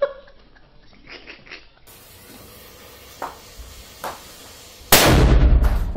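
A firecracker goes off about five seconds in, a single loud, sudden bang whose noise lasts about a second. Two faint clicks come shortly before it.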